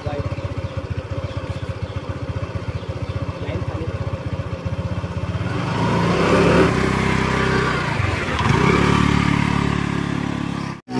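Small petrol scooter engine running at a fast, even idle just after being restarted with fresh petrol, then revved louder from about six seconds in as the scooter pulls away. The sound cuts off abruptly near the end.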